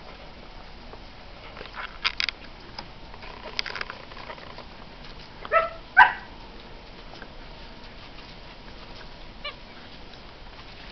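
Standard poodle puppies, nine weeks old, yelping: two short high yelps close together about halfway through, the second the loudest, with a few fainter short sounds before and a faint call near the end.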